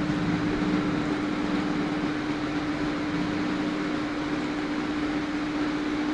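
A steady mechanical hum: one constant low tone over an even hiss.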